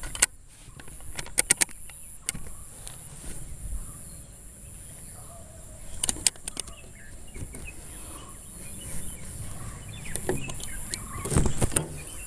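Scattered clicks and rubs from hands handling a homemade wooden slingshot and its rubber bands, with a cluster of clicks near the end, over a steady high-pitched insect drone.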